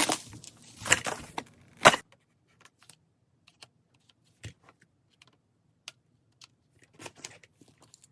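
Clicks and rattles of PC power-supply cables and case parts being handled and pushed into place: a cluster of loud clattering in the first two seconds ending in a sharp click, then sparse faint clicks.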